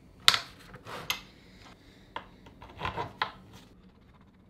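Plywood router-table fence and base plate being handled and fitted together on bolts and eccentric clamps: several short knocks and scrapes of wood and hardware. The sharpest comes about a quarter second in, with a small cluster around three seconds.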